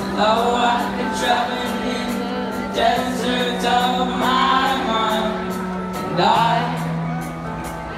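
Live band music through a concert PA: held keyboard chords under a voice singing, with light drum and cymbal strikes.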